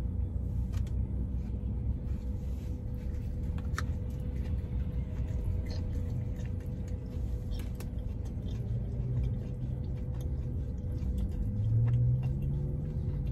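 Steady low rumble inside a car's cabin, with a steady hum and scattered faint clicks from chewing a burger. A low hum swells briefly near the end.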